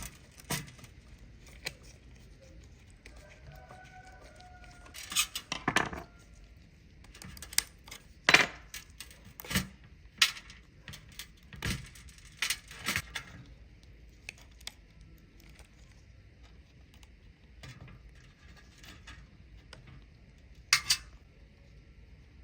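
Irregular metallic clinks and knocks, as of tools or small metal parts being handled and set down, bunched in the middle stretch with a last pair near the end.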